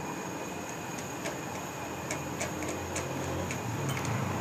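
Irregular light metal clicks as the 30 mm steering-stem nut on a motorcycle's top yoke (handlebar bridge) is worked loose with a socket tool and turned off by hand, over a low steady hum.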